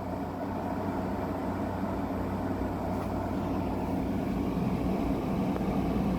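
Fan of a General Electric 6,000 BTU window air conditioner running steadily with its compressor off, after the unit froze up.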